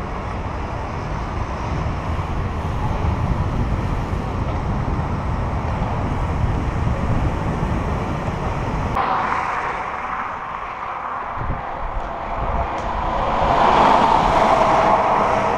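Wind rumble and road noise on a bicycle-mounted camera's microphone while riding along a street with traffic. About nine seconds in the sound changes abruptly to a higher rushing noise that grows louder near the end.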